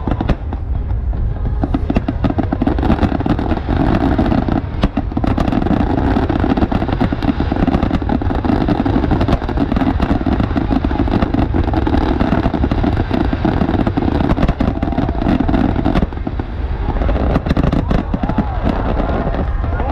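Aerial fireworks going off in a rapid, near-continuous barrage of bangs and crackles.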